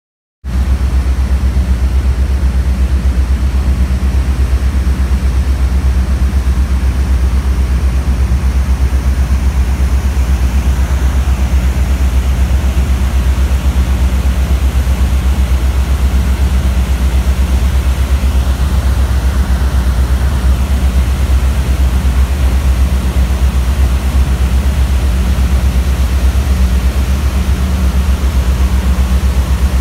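Heavy diesel demolition machinery running steadily: a deep, unchanging engine rumble.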